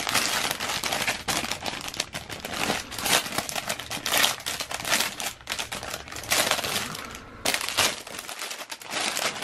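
Clear plastic poly bag crinkling irregularly as hands handle it and pull a folded T-shirt out of it.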